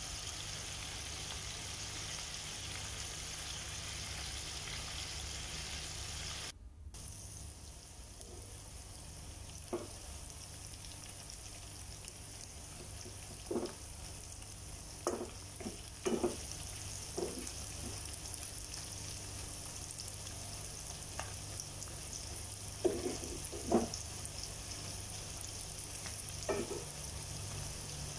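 Masala-coated chicken pieces sizzling steadily as they fry in hot oil in a metal pan, with scattered sharp knocks of a spoon against the pan as the pieces are turned. The sizzle cuts out for a moment about a quarter of the way in.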